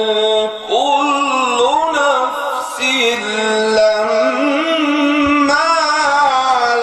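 Arabic folk singing: a solo voice holding long notes and bending them in wavering, ornamented turns, with no breaks.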